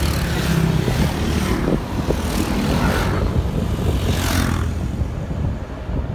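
Steady low engine drone and road and wind noise from a moving vehicle. Oncoming motorbikes pass close by with three swelling whooshes: about a second in, around two and a half seconds, and about four seconds in.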